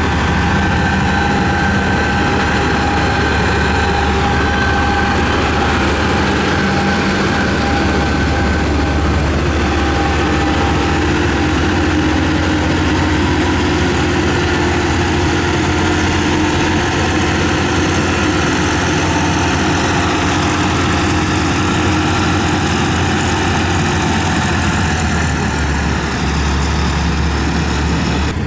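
Diesel engine of heavy road-construction machinery running steadily, with a deep low drone and a few higher steady tones over it.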